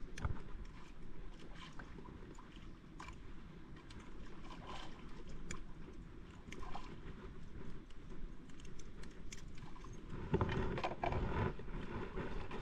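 Sounds aboard a small fishing boat at sea: water against the hull and wind on the microphone, with scattered light clicks. A louder rush about ten seconds in.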